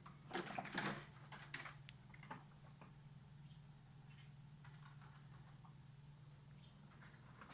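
Eurasian red squirrels giving a run of thin, high squeaks, one after another, like a badly oiled hinge. Near the start there is a brief burst of scratching and scuffling.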